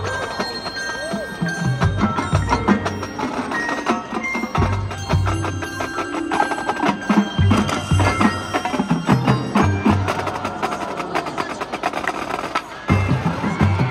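Marching band playing its field show: ringing mallet percussion and bell tones from the front ensemble over held band notes and recurring low drum hits.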